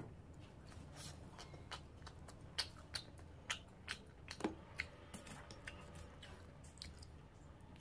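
Faint, wet hand sounds at a plate of curry and rice: soft squishes and a scattering of small clicks as fingers mix the rice with crab curry and squeeze a lemon wedge over it, over a low steady room hum.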